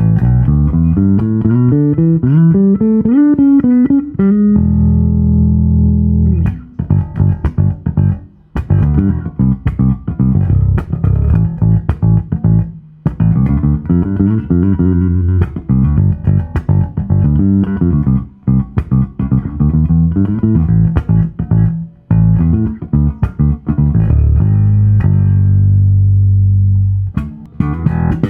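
Stem Classic Style J5 electric bass played unaccompanied: a rising run of notes, a held low note, then busy picked lines with sharp attacks, and another long sustained low note near the end.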